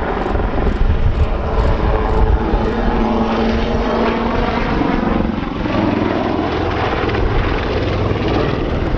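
Westland Lynx helicopter with twin turboshaft engines flying display manoeuvres overhead: steady rotor and turbine noise, with a whine that shifts in pitch about five seconds in.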